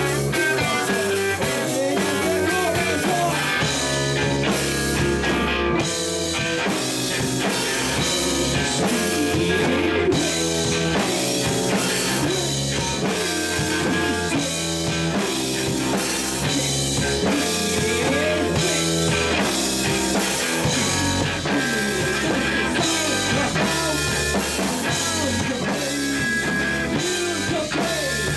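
A rock band playing live, with electric guitars over a drum kit at a steady loud level.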